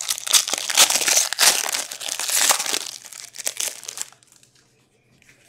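Crinkling of a hockey card pack's wrapper being torn open and crumpled by hand, dense for about three seconds, then fading.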